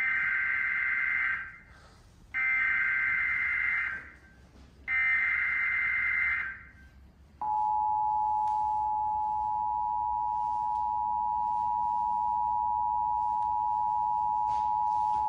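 Emergency Alert System tones from a TV: three bursts of the SAME digital header, a warbling data signal, each about a second and a half long, then the two-tone EAS attention signal held steady for about eight seconds. Together they announce a National Weather Service coastal flood warning.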